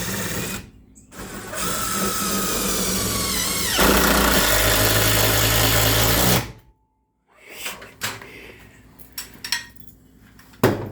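Power drill running under load in two sustained runs, the second getting louder and shifting in pitch partway through, then stopping abruptly; a few short knocks follow near the end.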